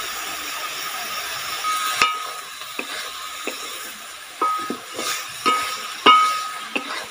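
Cubed ridge gourd and potato frying in oil in a metal kadai, sizzling, while a spatula stirs and scrapes the pan. In the second half the spatula strikes the pan several times with sharp, briefly ringing clinks. The vegetables are being fried with freshly added salt, chilli powder and turmeric.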